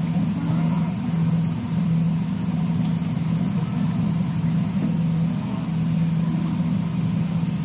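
Steady low mechanical hum, even in level.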